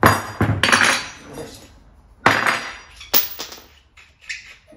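BC Racing coilover strut and its steel parts clanking and ringing as they are handled on the workbench: two bursts of metal knocks, one at the start and another just over two seconds in.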